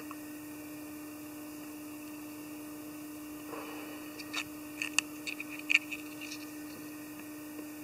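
Fingers handling the hair wing and jungle cock feathers of a tube fly in the vise: a handful of soft clicks and rustles about halfway through, over a steady low hum and faint hiss.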